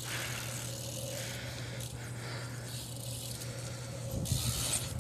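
BMX bike rolling over pavement with a light rattle, with a few knocks near the end as the rider works the trick.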